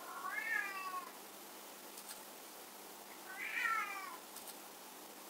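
A domestic cat meowing twice, about three seconds apart. Each meow lasts about a second and rises and then falls in pitch.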